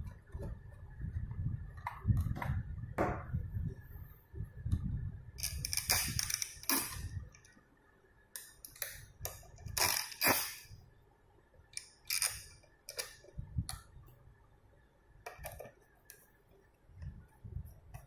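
Hands and a screwdriver working on a stainless-steel fingerprint door lock: scattered sharp clicks, taps and metallic scrapes, with low rumbling handling noise over the first seven seconds or so.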